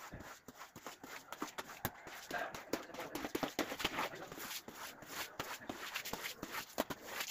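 Irregular scraping and tapping strokes of a long-handled floor cleaner being worked over a tiled floor, mixed with shuffling footsteps.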